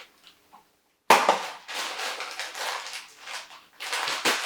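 A Funko Mystery Minis blind box being ripped open: a sharp tear about a second in, then crinkling and rustling of the packaging, with a second burst of crinkling near the end.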